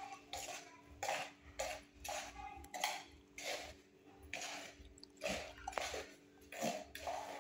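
A spoon scraping and knocking against a ceramic bowl while stirring sugar into dry flour, in repeated strokes about twice a second.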